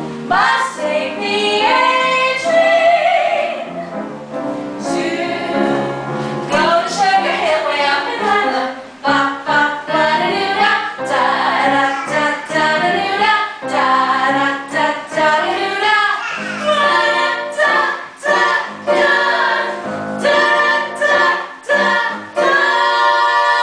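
Three women singing a song together with musical accompaniment, holding a long final note near the end.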